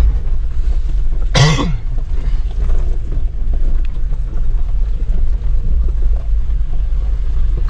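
Jeep Wrangler Rubicon heard from inside the cabin, a steady low rumble of engine and drivetrain as it crawls down a rocky slope in crawl mode with no throttle or braking. A single cough about a second and a half in.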